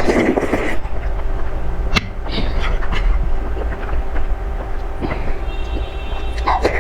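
Close-miked eating of spicy fire noodles: slurping at the start and chewing, with sharp wet clicks, over a steady low rumble.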